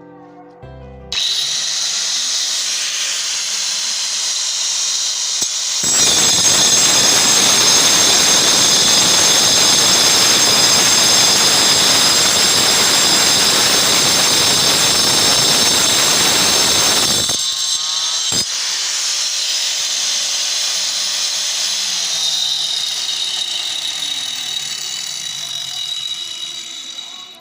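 DeWalt DW803 angle grinder switched on about a second in, running free with a high whine. From about six seconds to seventeen it cuts into material with a loud, harsh grinding noise. A click comes just after the cut ends, then the grinder runs free again and winds down at the very end.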